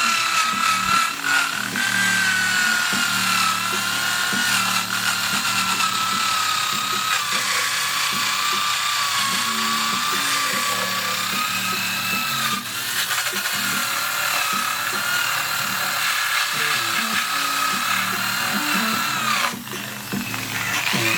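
Handheld electric power tool running steadily on a wooden board, its motor whine wavering slightly in pitch as it is worked. The whine dips briefly near the end.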